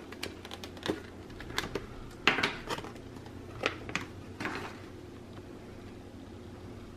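Light clicks, taps and plastic rustles of a boxed Christmas ornament being handled: a flat disc ornament slid out of its amber plastic sleeve, with a sharper click about two and a half seconds in. The handling stops a little past halfway, leaving only a low steady room hum.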